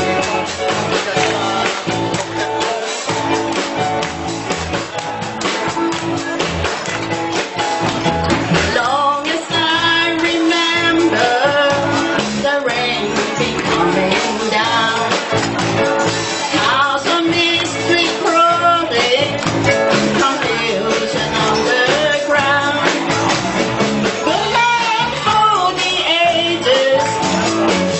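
A band playing a song: an instrumental opening, then a lead singer's voice comes in about nine seconds in and sings over the band.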